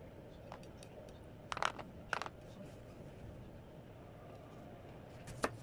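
Small knocks and scrapes of hands and tomato against a plastic bowl while tomato is worked by hand: a short clatter about a second and a half in, another about two seconds in, and one sharp tap near the end.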